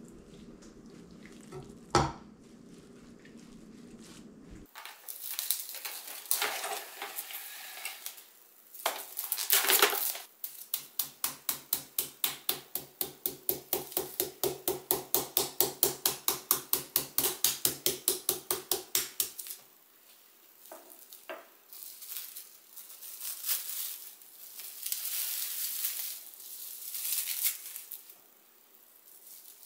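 Kitchen utensil and bowl handling: clinking and scraping, with a steady run of quick strokes, about three a second, for some nine seconds in the middle.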